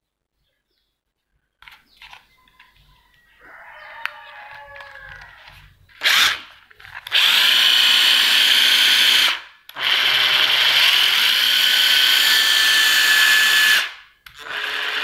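Makita cordless impact driver run with no load, its motor spinning freely without hammering. After a brief trigger blip it runs twice, for about two seconds and then about four.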